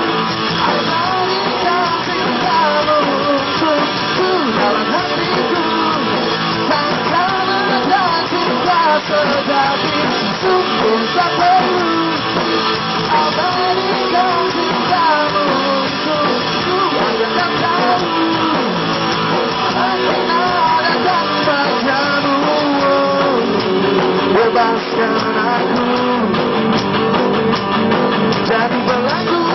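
Live pop-rock band playing an instrumental passage with no vocals: an electric guitar plays a lead melody with bends and vibrato over bass guitar, drum kit and keyboard.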